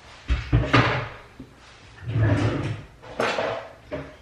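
A few knocks and thuds of household handling, like a drawer or cupboard door being opened and shut. The heaviest thuds come about half a second in, with a longer rattle around two seconds and sharp clicks near the end.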